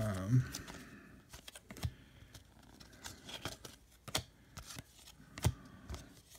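Baseball cards being flipped through by hand, each card slid off the front of the stack and tucked behind the others: light, irregular snaps and slides of card stock, a few sharper clicks among them.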